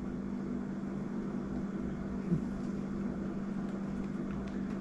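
Steady low background hum, with one brief faint knock a little past two seconds in as fingers handle small parts on a baitcasting reel's side plate.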